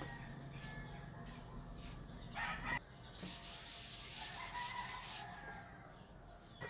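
Chalkboard eraser rubbed quickly back and forth across a chalkboard, wiping off chalk letters, about five strokes a second for some two seconds. A brief louder sound comes just before the rubbing, about two and a half seconds in.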